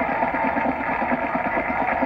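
Marching band playing, its drums keeping a fast, even beat. The sound is thin and dull, as from an old videotape replayed through a TV.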